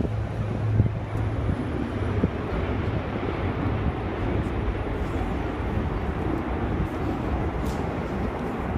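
Large Airbus aircraft flying a display, its engines a steady loud rumble with no sudden changes.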